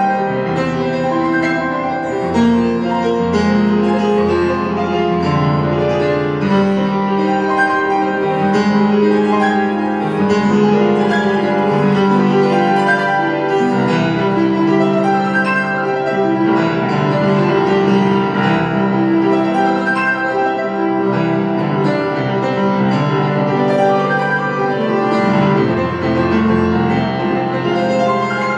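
Solo grand piano played loudly and continuously: dense classical passagework, many notes ringing together across a wide range.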